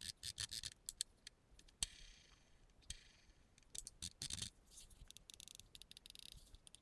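Faint, irregular plastic clicks and light scraping of a computer mouse being handled, with a slightly longer scrape about two seconds in and another a little past four seconds.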